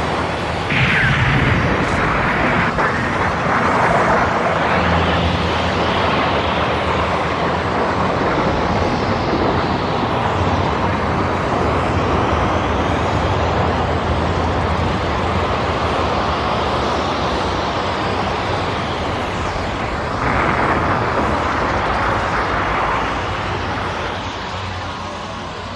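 Animated-film sound effects of a huge explosion and its aftermath: a continuous dense roar with a low rumble and whooshing sweeps. It swells about a second in and again about twenty seconds in, then dies down near the end.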